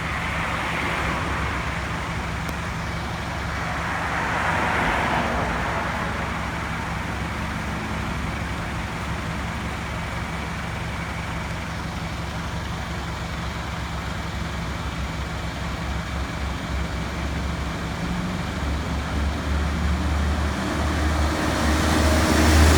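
A motor vehicle's engine running steadily, with road noise swelling and fading a couple of times. The engine grows louder and more uneven near the end.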